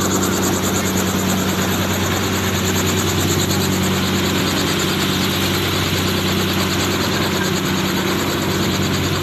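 A helicopter running steadily nearby: engine and rotors keep up a constant, even hum with a fast rotor beat.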